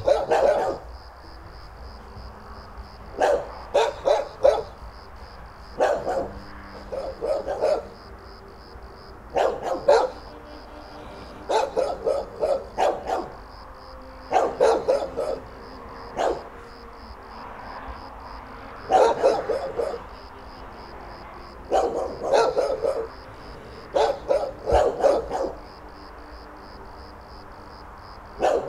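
Kennel dogs barking in bouts of several quick barks, with pauses of one to three seconds between bouts.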